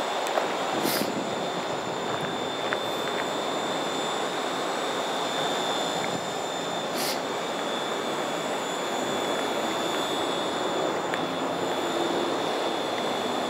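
Steady industrial machinery noise: an even rushing drone with a thin, steady high-pitched whine over it, unchanging throughout, with a couple of brief hisses.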